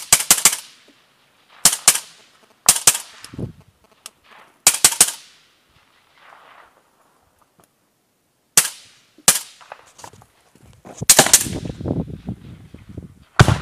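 Automatic weapon firing in short bursts of two to four shots, about eight bursts with pauses between them, the last few coming closer together near the end.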